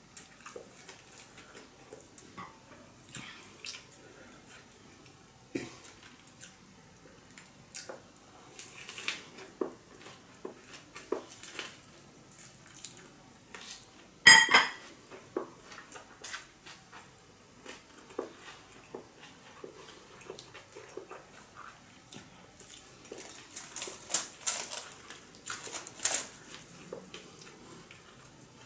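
Chewing and mouth sounds of a person eating fresh spring rolls of rice paper, steamed fish and fresh herbs, with scattered small clicks as the food and dishes are handled. One sharp clink about halfway through is the loudest sound.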